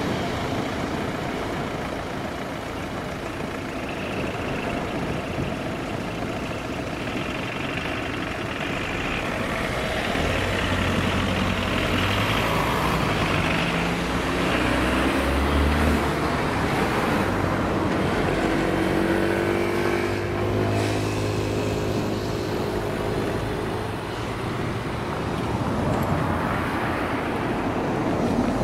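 Road traffic: motor vehicle engines running, with engine pitch rising as a vehicle accelerates about ten seconds in and again around eighteen seconds in.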